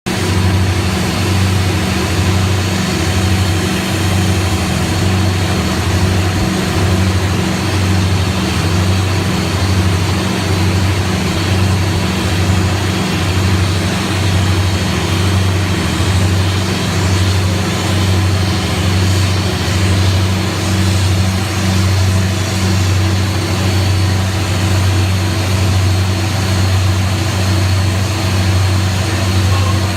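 Engine idling steadily, its low hum swelling in a slow, even pulse a little faster than once a second.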